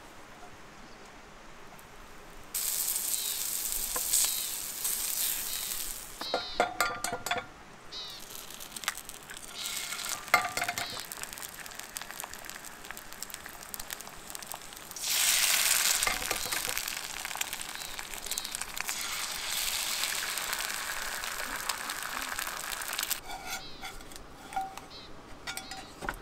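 Eggs frying in a cast iron skillet on a camp stove, sizzling in two long stretches, the second starting loudly about halfway through as another egg goes into the hot pan. Small clicks and clinks of utensils and eggshell come between the stretches.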